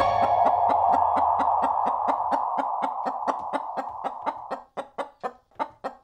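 Orchestral music ending on a held chord that fades out over about four and a half seconds, under a rapid run of short chicken clucks, about five a second, which slows and turns uneven near the end.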